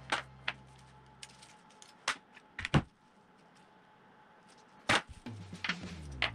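Scattered knocks and clinks as a metal twin-carburetor bank is handled and set down on a plastic tray. The loudest knocks come a little before three seconds in and about five seconds in.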